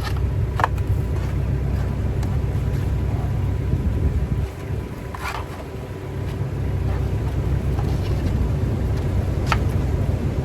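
Caterpillar 307C mini excavator's diesel engine running with a steady low rumble, the excavator likely tracking. The rumble eases briefly about halfway through, and three short sharp sounds stand out over it.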